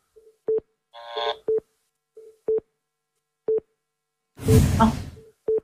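Short, low electronic beeps repeating steadily once a second, like a countdown timer. About a second in comes a brief pitched tone, and near the end a loud burst of noise like a whoosh or hit.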